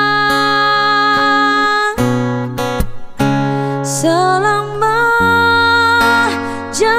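Background music: an Indonesian love song with strummed acoustic guitar and a singer holding long, wavering notes, with a short break about two to three seconds in before the voice comes back.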